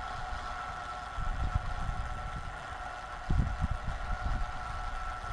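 Wind buffeting the microphone in low rumbling gusts, about a second in and again a little after three seconds in, over a steady two-tone hum.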